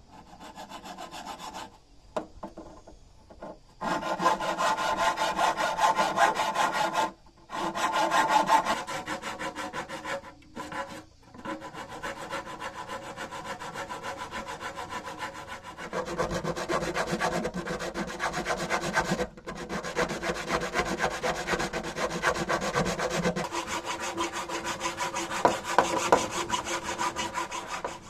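A hand tool cutting or scraping wood in long continuous runs of fast, fine strokes, with a few short pauses.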